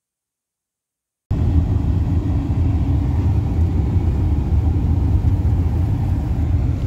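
Silent for about the first second, then a steady low rumble of road and engine noise heard inside a moving vehicle's cabin.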